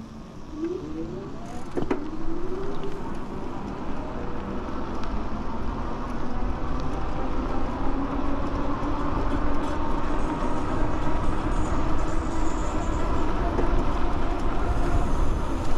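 Electric bike's hub motor whining, rising in pitch a few times in the first seconds as the bike speeds up, then holding a steady whine. Wind rushes on the handlebar-mounted microphone, with tyre noise on the road.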